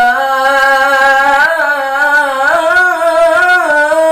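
A man reciting the Quran in the melodic tilawah style, drawing out one long, unbroken, ornamented phrase. His pitch turns slowly and steps up a little about halfway through.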